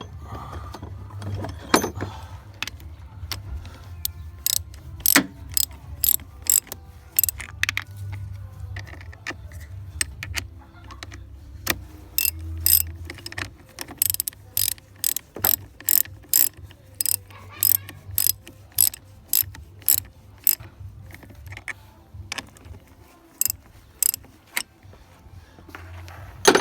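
Ratchet wrench with a 10 mm socket clicking as the battery's nuts are tightened: runs of sharp clicks, about two a second, broken by short pauses.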